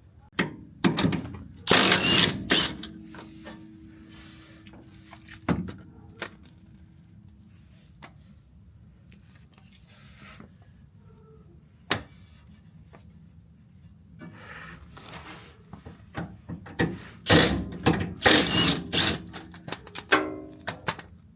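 Tool work under a car: scattered metal clanks and knocks, with two spells of louder rattling clatter, one about two seconds in and a longer one near the end.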